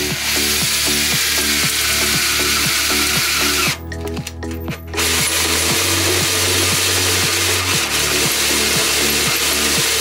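Cordless drill cutting a hole through the metal wall of a multicooker bowl, a harsh grinding noise of the bit biting into the metal. The drilling stops for about a second near four seconds in, then resumes.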